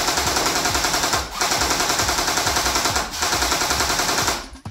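Airsoft electric gun (AEG), a G3-style rifle, firing fully automatic in three long bursts. The bursts are broken by short pauses about a second in and about three seconds in, and the firing stops just before the end.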